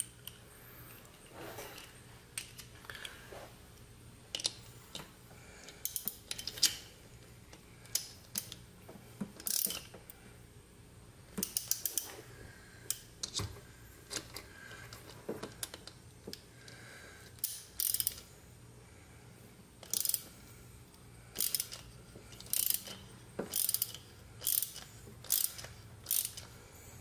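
Small hand ratchet clicking in short bursts every second or two as it turns a HeliCoil thread tap, cutting new threads into a drilled hole in an aluminium engine case.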